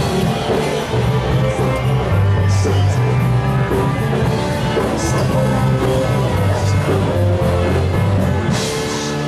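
A live rock band playing, with electric guitar over a steady bass line and a drum kit, cymbal crashes coming every couple of seconds.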